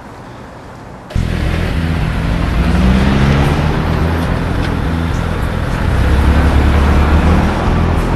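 A car driving, its engine and road noise starting suddenly about a second in and running loud and steady.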